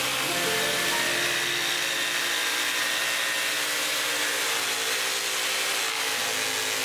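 Electric saw with a thin reciprocating blade, mounted under a plywood table, running steadily while cutting a curve in plywood.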